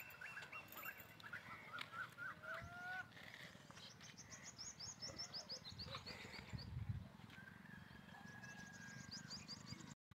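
Faint birdsong: several small birds chirping. There are quick runs of chirps early on and again near the end, and a brief low rumble about two-thirds of the way through.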